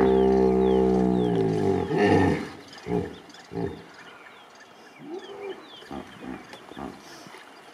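Hippopotamus calls from a crowded hippo pool: one long, loud honking call lasting about two seconds, then a few short grunts.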